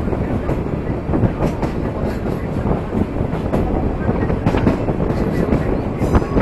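Sagano Scenic Railway trolley train running along the track: a steady rumble of wheels on rails, with irregular clacks and knocks from the cars.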